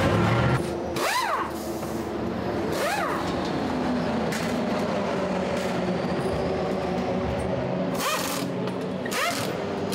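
Pneumatic wheel guns on the wheel nuts during a race-car tyre change: four short bursts, two near the start and two near the end, each spinning up and winding back down in pitch, over a steady low hum.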